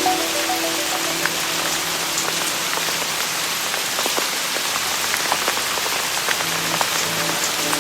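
Steady rain falling, a dense, even hiss dotted with scattered sharp ticks, over faint sustained low music notes.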